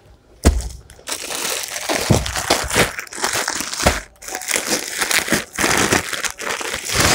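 Clear plastic packaging crinkling and rustling as plastic-wrapped bundles of garments are handled and pulled out, with a thump about half a second in.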